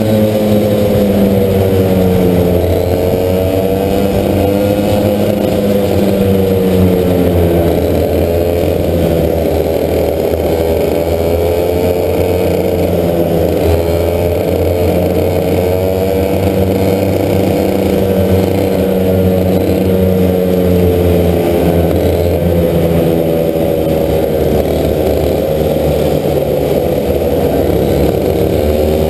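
Racing kart engine heard from onboard at race pace, its pitch falling as the kart slows into corners and rising again as it accelerates out, every few seconds.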